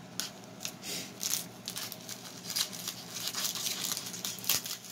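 Crinkly wrapper of a 2021 Topps Pro Debut trading-card pack being handled and torn open by hand, an irregular run of crackles and rustles, busiest from about a second in.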